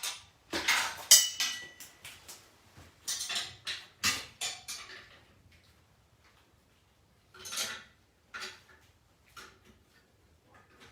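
Irregular metal clinks and clanks of steel parts and tools being handled and set down, loudest in the first few seconds, with a short ringing clink about a second in, then a few sparser knocks.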